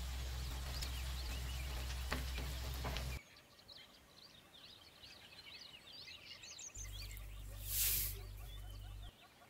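Turmeric powder hitting hot oil in a wok gives a short, loud sizzle about eight seconds in, over a low steady hum. The first three seconds carry a similar hum with a crackling hiss, and faint high crackles fill the quieter stretch between.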